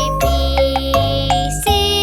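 Upbeat children's song music with bright bell-like synthesized melody notes over a steady bass line, pitched up high.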